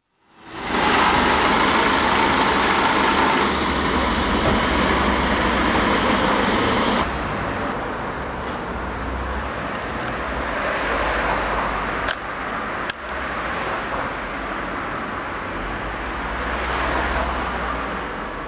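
Steady road-traffic rumble and hiss. It is loudest for the first seven seconds, then drops suddenly. Two sharp clicks come about twelve and thirteen seconds in.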